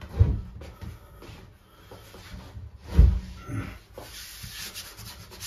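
Laminate-faced chipboard kitchen worktop being pushed into its joint against the adjoining worktop: two dull knocks a few seconds apart, then a scraping rub of worktop against worktop near the end.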